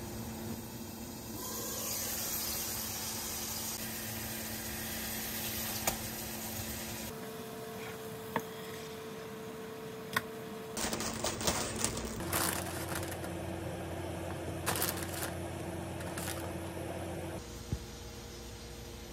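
Hamburger patties cooking in an oiled frying pan on an induction cooktop: a steady hum and hiss with a few sharp clicks of the utensils and pan. About eleven seconds in comes a short run of knocks and scrapes as a patty is turned in the pan.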